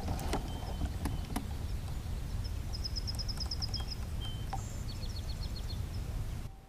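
Small birds singing in the background: a rapid trill of about ten high notes near the middle, then a shorter run of lower notes, over a steady low rumble. A few sharp clicks sound in the first second and a half.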